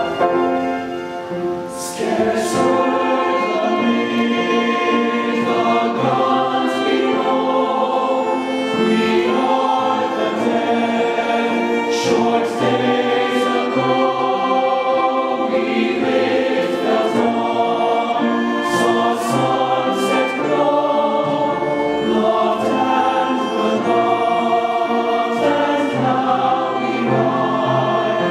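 Mixed choir singing with violin accompaniment; the voices come in fully about two seconds in after a brief softer moment.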